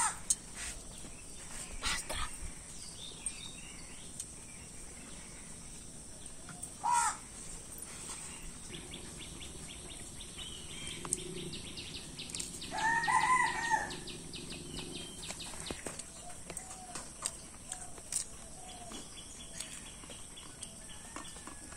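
A rooster crows once, a stacked, arching call of about a second, a little past the middle. Around it are scattered faint clicks and a shorter high call about a third of the way in.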